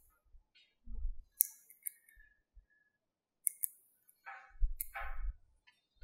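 Small magnetic balls clicking sharply as they snap onto one another, a few separate clicks with two in quick succession about halfway through. Between the clicks, soft knocks and rubbing as the ball-built figure is handled.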